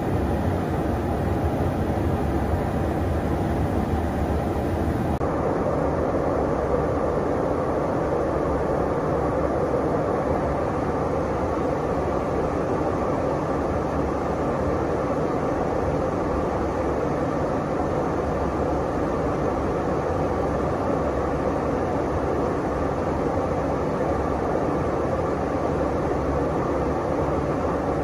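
Steady engine and airflow drone heard inside a KC-135 Stratotanker's cabin in flight. About five seconds in its tone shifts slightly, with more of the middle range.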